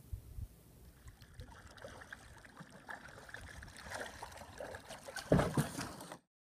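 Kayak paddle strokes on open water: blades dipping and water dripping and trickling off them, with a louder thump near the end before the sound cuts off.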